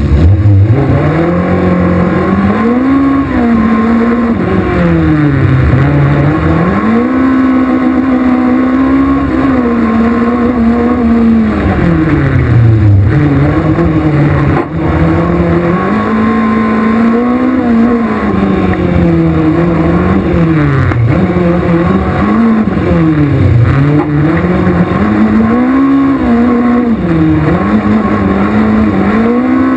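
Four-cylinder engine of a VW Golf Mk1 16V race car heard from inside the cabin, revving hard and dropping again and again as the car accelerates, shifts and lifts through a slalom course.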